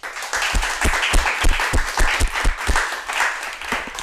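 Applause from a small group of people clapping, starting suddenly and dying away near the end.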